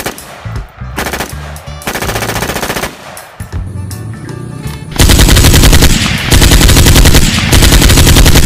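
Rapid automatic gunfire in several short bursts, then a long, loud continuous burst starting about five seconds in.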